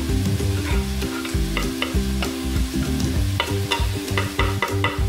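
Onions, chilli and garlic sizzling in a frying pan, with short sharp scrapes as a knife pushes chopped garlic off a wooden chopping board into the pan. Background music with a bass line plays throughout.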